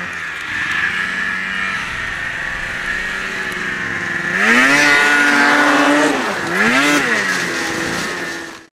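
Ski-Doo MXZ 600 RS snowmobile's two-stroke engine running steadily, then revved up hard about four seconds in and held high for over a second. It drops back, is revved again briefly near seven seconds in, and then settles.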